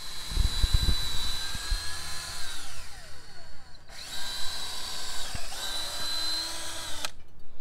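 DeWalt cordless drill running in two long runs into a wooden 4x4 post, with a high motor whine. The pitch falls off at the end of the first run, and the second cuts off abruptly near the end. A few low knocks come near the start.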